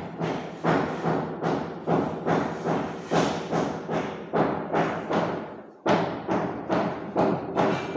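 Music with a steady, heavy drum beat, about two to three strikes a second over sustained pitched tones; it breaks off for a moment near six seconds in, then picks up again.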